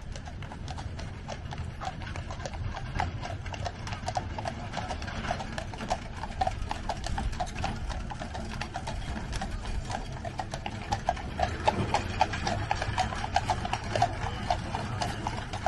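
A horse's hooves clip-clopping at a walk in a quick, steady run of knocks, growing louder toward the end as the horse comes closer.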